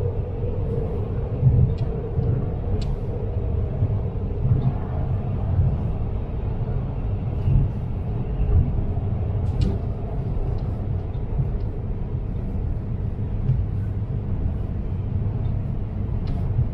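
CAF automated metro train running between stations, heard from on board: a steady low rumble with scattered short clicks of the wheels on the track. A humming tone fades out in the first second.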